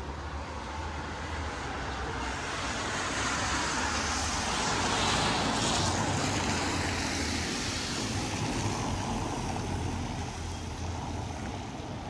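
A motor vehicle passing by: its tyre and engine noise swells to a peak about five or six seconds in, then fades.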